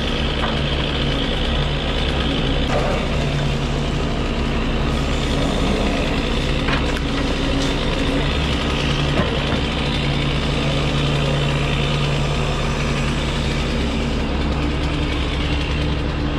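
Grapple truck's engine running steadily to drive the hydraulic boom and grapple as they work the uprooted oak stump, with a few short knocks from the grapple and stump.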